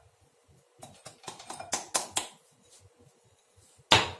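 Glassware being handled on a glass countertop: a run of light clicks and taps about a second in, then one sharp glass knock near the end as a glass is set down or picked up.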